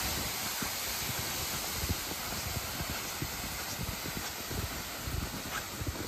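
Plastic sled loaded with ice-fishing gear hissing as it slides over packed snow on a trail, with irregular soft thuds of footsteps in the snow.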